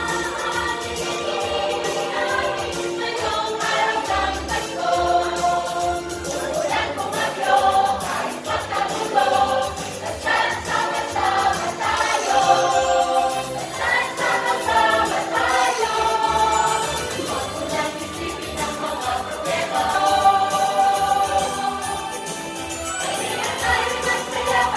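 Choir singing a Christmas carol.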